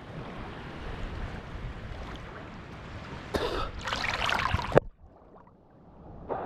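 Seawater sloshing and splashing around a GoPro held at the surface, with a louder rush of water about three to five seconds in. The sound then cuts to a muffled near silence for about a second and a half as the camera dips under, and comes back near the end.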